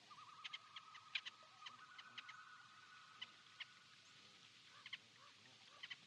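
Faint forest ambience: scattered short bird chirps over a steady, slightly wavering high-pitched trill.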